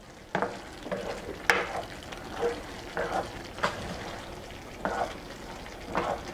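Black plastic spoon stirring rice as it cooks in liquid in a stainless steel skillet: a series of short scrapes and knocks against the pan, irregular and about every half second to a second, over a faint steady sizzle of the cooking rice.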